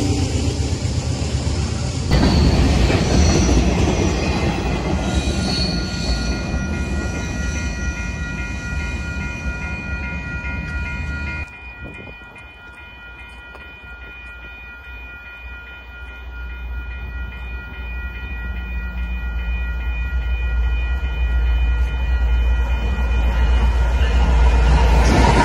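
Freight cars rolling past close by, wheels clacking and squealing. About halfway through, the sound drops suddenly and Canadian Pacific diesel locomotives are heard approaching, their low rumble growing steadily louder toward the end.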